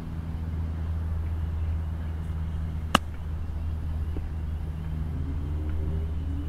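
A golf club striking the ball on a short chip shot: one crisp click about three seconds in, over a steady low rumble.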